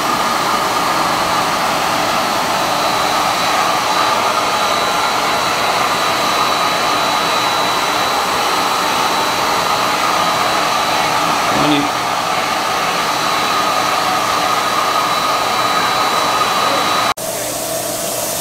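Spray-tan machine's turbine blower running, a steady rushing air noise with a thin high whine over it, breaking off abruptly about a second before the end.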